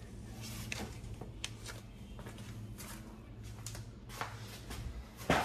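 Scattered small clicks and rustles of hands handling tools and parts around an outboard's lower unit, with one sharper knock just before the end, over a steady low hum.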